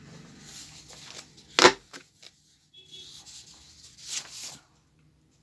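Sheet of paper being handled and shifted on a desk, rustling, with one sharp tap about one and a half seconds in and a shorter rustle about four seconds in.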